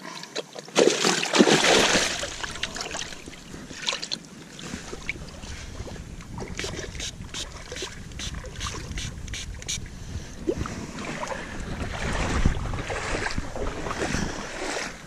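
Water splashing and sloshing, loudest for about a second near the start, then lighter with scattered knocks and a second swell near the end. Wind buffets the microphone throughout.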